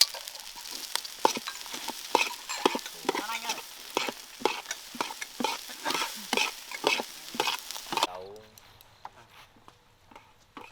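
Fried rice being stirred and tossed in a hot pan: sizzling with regular scraping strokes, about two a second, that stop about eight seconds in.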